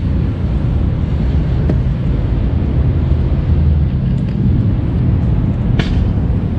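Steady low rumble of outdoor background noise, wind on the action camera's microphone and city traffic, with a single sharp click near the end.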